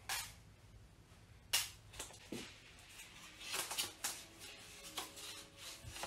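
Balsa wing frames being handled and lifted off a plastic-covered building board: scattered light clicks, taps and rustles, with two sharper clicks, one at the start and one about a second and a half in.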